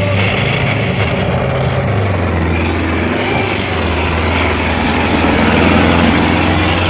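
Sonalika DI 750 tractor's diesel engine running hard under load as it drags a double harrow, a steady low drone that grows a little louder as the tractor passes close by about five or six seconds in.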